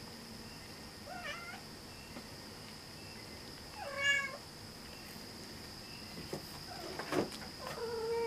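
Domestic cat meowing three times, the loudest call about four seconds in, with a sharp click shortly before the last meow. A faint steady high-pitched tone runs underneath.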